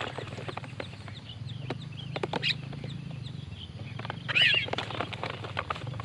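Birds calling: a string of short, harsh chirps and clicks, with a loud burst of high chirps about four seconds in, over a steady low hum.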